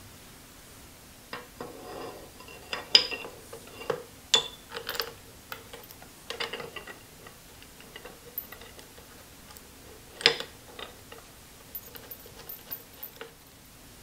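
Steel hand tools and machine parts clinking and clattering against the metal table of a Wells Index Model 40 milling machine during assembly, in scattered sharp clinks, the loudest about three seconds in and again about ten seconds in.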